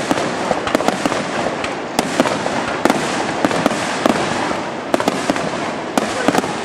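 Dense fireworks barrage: many aerial shells bursting in quick, irregular succession, sharp bangs over a continuous crackle and hiss.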